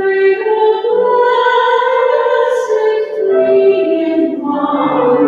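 A woman singing a slow hymn, holding long notes.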